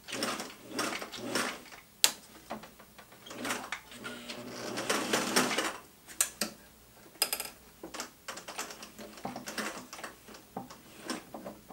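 Vintage Singer 503A Rocketeer sewing machine stitching heavy pack cloth to a zipper in short stop-start runs, the longest a few seconds in the middle, with clicks and handling knocks between runs.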